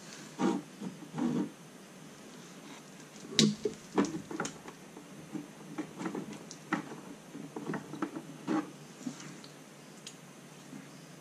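Irregular clicks, taps and light knocks from handling test leads, probe clips and a circuit board, the loudest two about three and a half and four seconds in, thinning out near the end.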